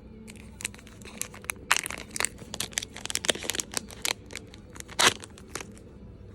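Packaging crinkling and tearing as a newly bought item is unwrapped: a dense run of irregular crackles, the loudest about five seconds in.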